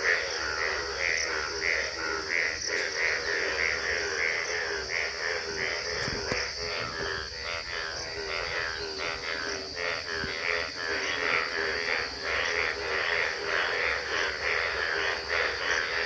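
A chorus of frogs calling, a 'trr trr' trilling croak repeating about twice a second without a break, over a steady high-pitched drone.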